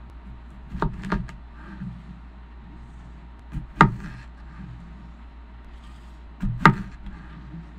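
Chef's knife slicing through the stem ends of fresh jalapeños and striking the cutting board: short crisp cuts, a quick pair about a second in, then two louder single chops near the middle and near the end.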